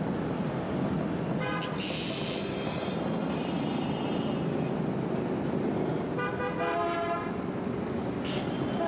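Street traffic: a steady din of engines with vehicle horns tooting, most plainly a long horn about two seconds in and several more around six to seven seconds in.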